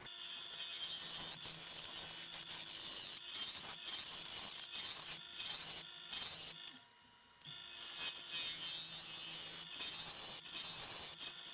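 Carbide-tipped turning tool cutting a spinning blank of colored pencils set in epoxy resin on a Nova Comet II lathe: a steady hissing scrape from the cut, with the lathe's motor hum underneath. The cut stops briefly about seven seconds in, then resumes.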